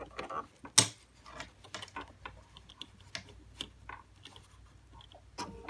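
Light, irregular clicks and taps of a hand needle and fingers working thick fabric layers at a sewing machine's presser foot, with one sharp click about a second in. Just before the end the BERNINA 770 sewing machine starts running.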